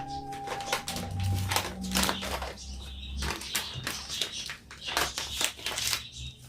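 Scattered light taps and clicks, irregular and unevenly spaced, like small household objects being handled and set down, over a faint low hum.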